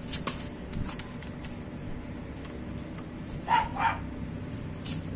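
A dog barks twice in quick succession about three and a half seconds in. Before that come a few light metallic clicks and taps as the Allen wrench is worked on the motorcycle's engine sprocket bolts.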